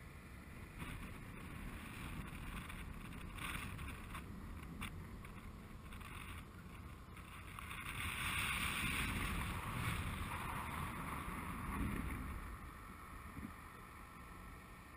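Wind buffeting the microphone of a camera riding high on a crane-lifted load, a steady rushing rumble that swells louder between about 8 and 12 seconds in.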